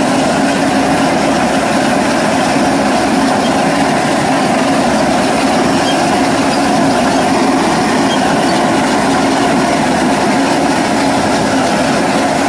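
Tractor-driven hay mower running steadily while cutting grass: a loud, unchanging mechanical running sound of the engine and the spinning cutter.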